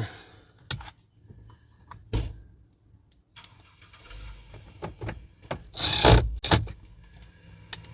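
Clicks and knocks of a car's interior door panel being pressed and fitted back into place, with a louder thump about six seconds in.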